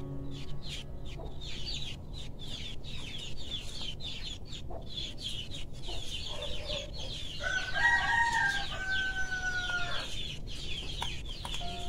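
A rooster crows once, a single held call of about two and a half seconds a little past the middle, over a steady run of fast high-pitched chirping.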